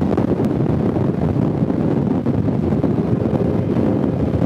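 Steady wind rush buffeting the microphone at road speed on a Harley-Davidson Fat Boy, with the motorcycle's V-twin engine running underneath.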